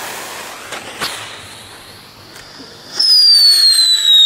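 Funke Luftheuler whistling firework: a faint hiss for about three seconds, then a loud shrill whistle sets in that starts high and slowly falls in pitch.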